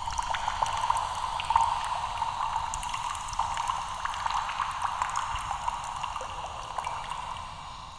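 Abstract sound effect: a steady crackling, fizzing noise with many small clicks, which starts abruptly and fades out near the end.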